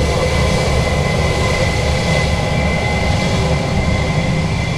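Airbus ACJ319's IAE V2500 turbofan engines running at taxi power: a steady high whine over a low rumble.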